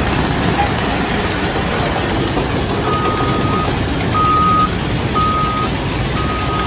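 Heavy vehicle's engine running loudly, with a reversing alarm starting about three seconds in and beeping at a steady pitch about once a second.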